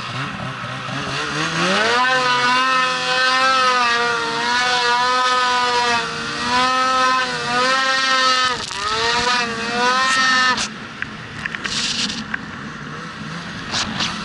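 Two-stroke engine of an 850 mountain snowmobile revving up about a second in and held at high revs while climbing through deep powder, with two brief dips in pitch. Near the end the throttle is let off and the engine drops away suddenly to a low rumble.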